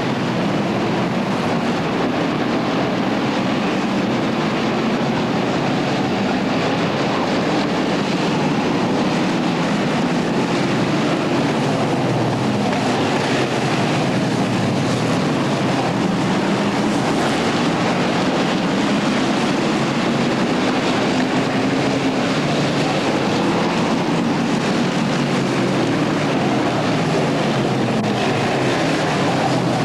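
Stock car engines running on a short oval track: a steady, loud drone of several cars together, with engine notes rising and falling as cars pass.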